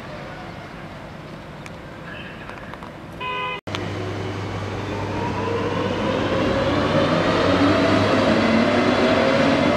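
A short horn toot a few seconds in. After a cut, a ČD class 210 electric locomotive comes closer as it gets under way, growing steadily louder, with a whine of several pitches that rises and a steady low hum beneath it.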